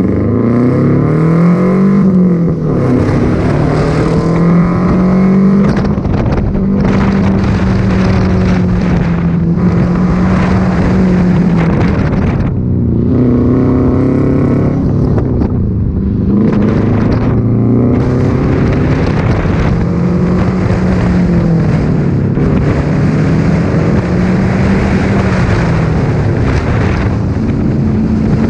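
Subaru Impreza 2.5 RS's flat-four engine being driven hard on an autocross course, its pitch rising and falling over and over as the driver accelerates and lifts between corners, with a steady hiss of tyre and wind noise underneath.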